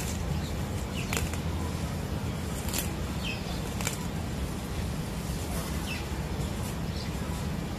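Steady outdoor background noise with a low rumble, a few short faint bird chirps, and three sharp clicks in the first half.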